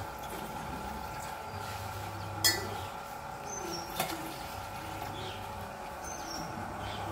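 Water poured from a glass tumbler into a stainless steel saucepan on a switched-on induction cooktop. The cooktop hums steadily, with a low buzz that switches on and off in stretches of a second or so as it cycles its power. Glass clinks sharply about two and a half seconds in and again more lightly about four seconds in.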